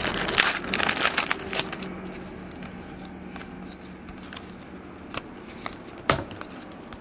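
A trading-card pack wrapper being torn open and crinkled for about two seconds, then a few faint clicks of card handling.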